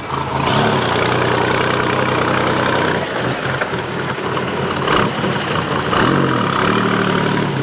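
Holden FC off-road race car's engine idling steadily and loudly, with a brief dip about three seconds in and a couple of short knocks near the end.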